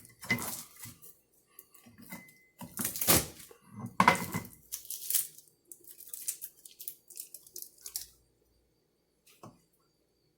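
Kitchen food-prep handling sounds: irregular crinkly rustling and scraping with louder bursts about three and four seconds in, fading out after about eight seconds, then one small knock near the end.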